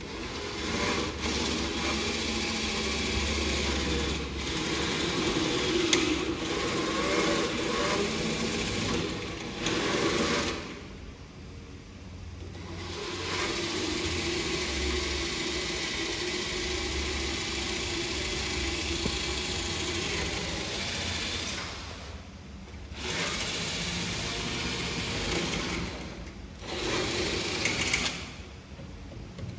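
Electric power tool motor running under load in several long runs, stopping briefly about ten seconds in, again around twenty-two seconds, and twice near the end.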